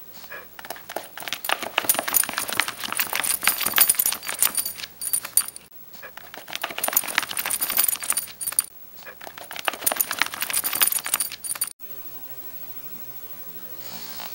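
A Shih Tzu puppy's claws scratching and scrabbling rapidly at a plastic-covered ring binder, with a light metallic jingle, in three long bouts. About twelve seconds in the scratching stops and quiet background music takes over.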